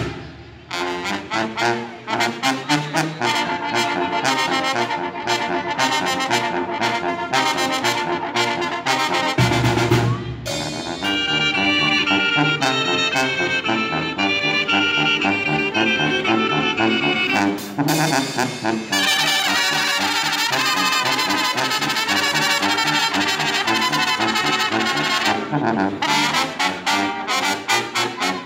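Brass band music playing continuously, with no speech over it.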